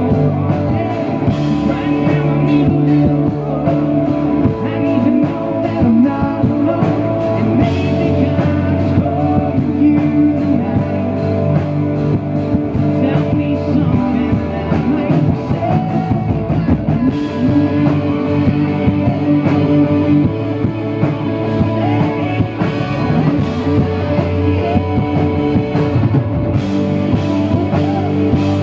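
Live rock band playing: a man singing lead over electric guitar, bass guitar and a drum kit.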